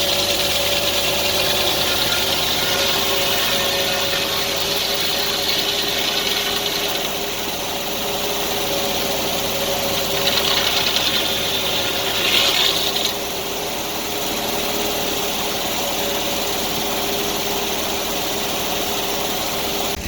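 An engine running steadily, with a slight swell in level about ten and twelve seconds in.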